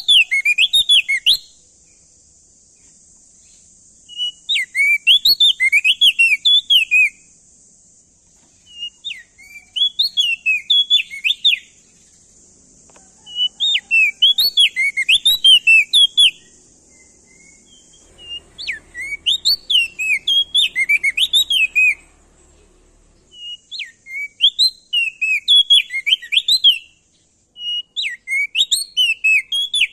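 A crested white-eye (opior jambul / prenjak daun) singing: repeated phrases of rapid, sweeping whistled notes, each phrase lasting two to four seconds, with short pauses between them. A steady faint hiss runs underneath.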